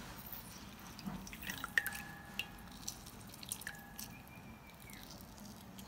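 Lemon juice dripping from a squeezed lemon into a steel pot of hot herbal decoction: faint scattered drips and small clicks. A few of them are followed by a brief ringing tone.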